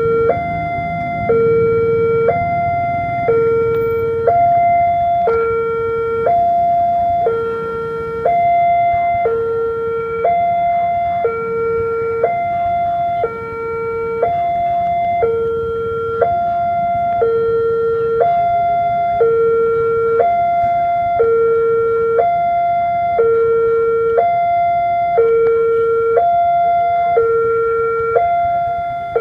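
Railway level-crossing warning alarm sounding its two-tone electronic signal, a lower and a higher tone alternating about once a second each, repeating evenly. It means the crossing is closed, with lamps flashing and barriers down, for an approaching train.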